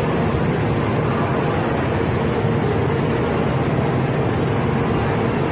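Steady street traffic noise: a continuous rumble with the hum of idling vehicle engines.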